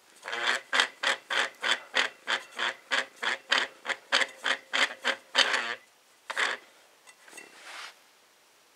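Model D siren rotor turning with bad bearings, giving a rasping, grinding scrape about three times a second for some five seconds, then two more scrapes as it slows and stops.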